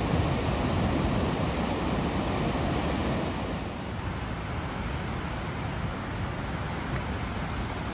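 Steady rushing roar of a large waterfall, with wind on the microphone. It becomes a little quieter and less hissy about three and a half seconds in.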